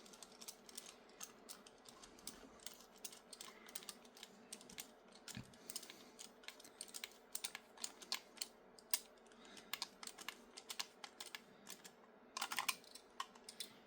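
Faint, irregular small clicks and taps of a hex driver and M2 screws being handled and driven into 3D-printed plastic chassis parts.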